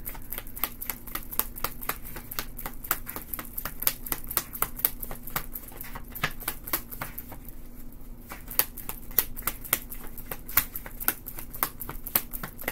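A tarot deck being shuffled by hand: a run of quick, irregular card clicks and slaps, several a second, thinning briefly about seven seconds in.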